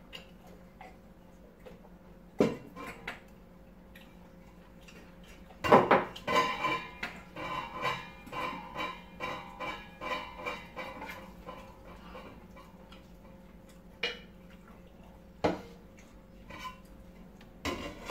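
Metal utensil knocking and scraping against a frying pan as sauce is scooped out onto rice: a run of clinks about two a second with a ringing tone, in the middle, and a few single dish knocks before and after.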